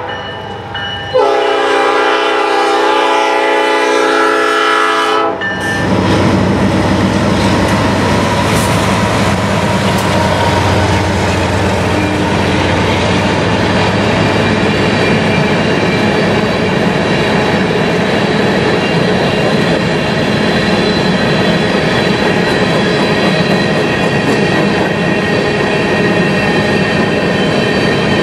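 Diesel freight locomotive's air horn sounding one long blast about a second in, lasting about four seconds. Then the steady rumble and wheel clatter of a long string of covered hopper cars rolling past a grade crossing.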